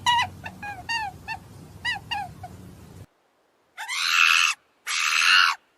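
Farm animal calls. A quick series of short pitched calls, each falling in pitch, fades out about three seconds in. After a short silence come two long, harsh, rasping calls from a different animal.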